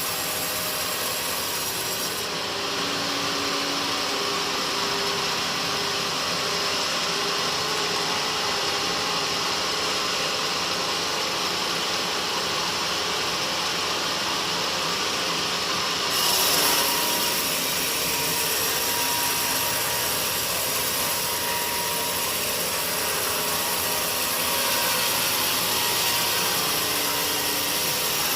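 Sawmill saw cutting through a teak log, a steady sawing noise that runs on without a break.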